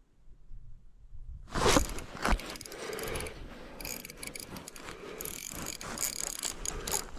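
Fishing reel ratcheting with dense, fast clicking as a hooked fish fights on the line, starting suddenly about a second and a half in with a couple of loud knocks.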